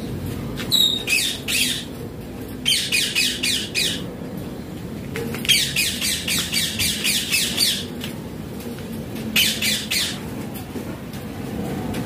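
A caged parakeet screeching in four runs of rapid, repeated shrill squawks, the longest lasting about two seconds, with short pauses between runs.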